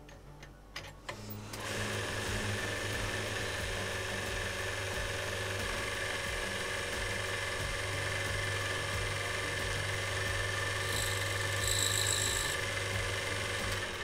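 A few clicks as a gold bangle is fitted onto the mandrel of a small bench lathe, then its electric motor starts about a second and a half in and runs steadily with a hum, spinning the bangle against the tool for a polishing cut. A brief high-pitched whine comes in near the end.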